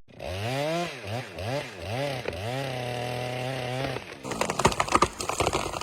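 Chainsaw engine revved in about five quick throttle blips, its pitch swooping up and down, then held at a steady speed. About four seconds in, it gives way to a run of sharp knocks and clatter.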